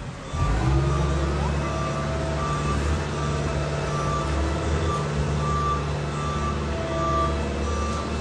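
Reversing alarm of a heavy vehicle, beeping at one pitch a little under twice a second, over the steady low running of its engine.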